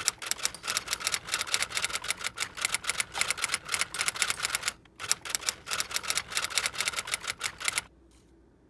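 Typewriter typing sound effect: rapid key clicks, about nine a second, in two runs with a short pause about halfway through. It stops about a second before the end.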